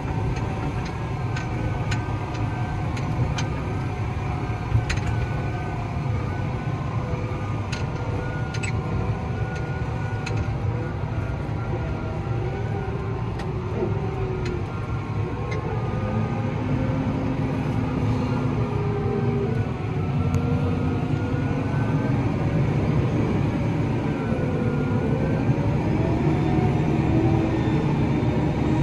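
Tractor engine running steadily, heard from inside the cab while driving over a rough field, with scattered clicks in the first half and a wavering tone that rises and falls in the second half.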